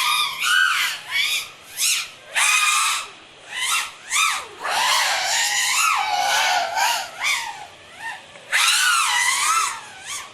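Brushless motors and propellers of an FPV racing drone, whining in repeated surges whose pitch rises and falls as the throttle is worked through the gates.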